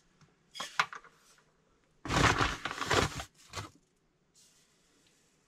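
Granulated sugar poured from a plastic measuring cup into a stainless steel saucepan of cocoa and flour, sliding out in rustling spurts: a short one about half a second in, a louder one lasting about a second around two seconds in, and a brief last one soon after.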